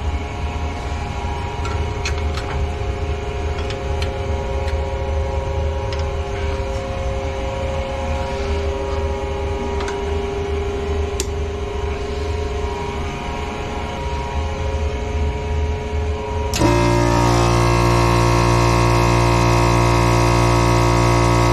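A steady low hum with a few small clicks of fittings being handled; about 16 seconds in, an electric air compressor starts with a sudden jump in level and runs on loudly and steadily.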